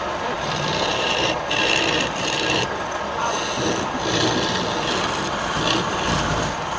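Wood being worked on a spinning lathe: a tool or abrasive rubs and scrapes against the turning workpiece in passes about a second or so long.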